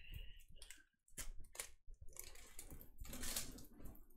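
Clear plastic release film over a large diamond painting canvas crinkling and rustling as the canvas is bent and handled, in irregular rustles and clicks with a louder rustle about three seconds in.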